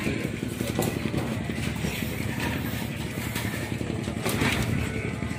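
A motor running steadily with a low hum, with a few short knocks and rustles of handling.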